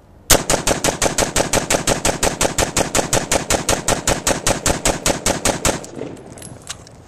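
DPMS AR-15 carbine fired in a fast, even string of semi-automatic shots, about seven a second, for roughly five and a half seconds, then stopping.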